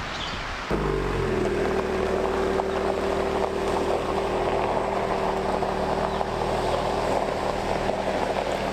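A steady, engine-like hum starts suddenly about a second in and holds at one pitch over a hiss of rain.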